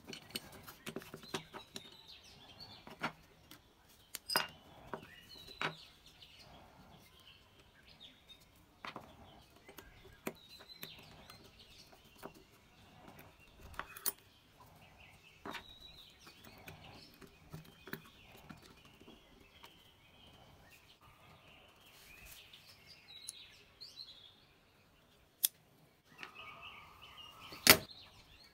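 Small plastic parts of a toy pistol clicking and clattering as they are pried apart, handled and set down on a wooden desk: a run of scattered sharp clicks and knocks, with one sharp click near the end the loudest. Faint chirping runs in the background.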